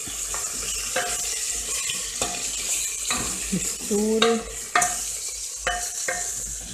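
A wooden spoon stirring meat and cassava chunks in an aluminium pressure cooker, knocking and scraping against the pot about nine times, over a steady sizzle.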